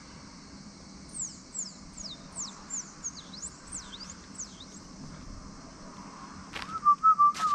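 A bird calling a quick series of high, thin whistled notes, each sliding sharply downward. Near the end a few sharp knocks and a short wavering whistle-like tone, louder than the bird calls.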